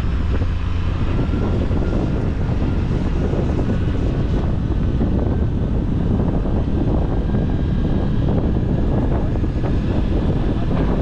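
Steady road and engine noise of a moving vehicle, with wind buffeting the microphone.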